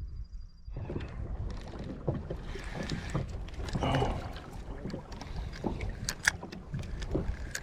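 Handling and fishing-gear noise aboard a fishing kayak: irregular knocks and clicks over a steady low rumble of wind on the microphone, with a louder patch about four seconds in and a few sharp clicks near six seconds.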